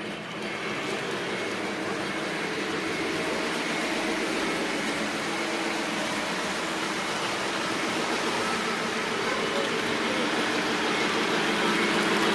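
Lionel O gauge Polar Express model train running on its track, a steady rolling rumble of wheels and motor that grows gradually louder.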